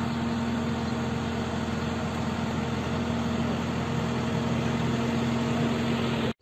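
An engine idling steadily, a constant hum that cuts off suddenly near the end.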